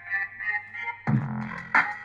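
Music played through a homemade single-MOSFET amplifier and small speaker. A keyboard melody over a steady low hum switches about a second in to a louder, bass-heavy beat.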